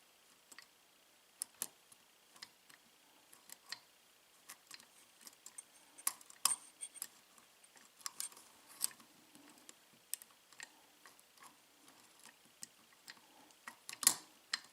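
Irregular, faint metallic clicks and ticks of a small lock pick and tension wrench working the pins of a 5-pin Marks pin-tumbler lock during single-pin picking, with a few louder clicks near the end.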